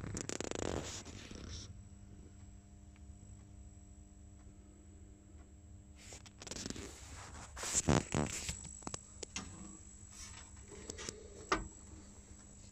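Rustling, scraping and clicking handling noise from the moving camera, loudest about six to eight seconds in, over a faint steady low hum.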